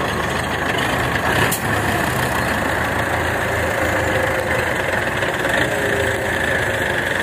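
Belarus MTZ tractor's diesel engine running steadily under heavy load, hauling an overloaded sugarcane trolley hard enough to lift the tractor's front wheels. A single sharp knock comes about one and a half seconds in.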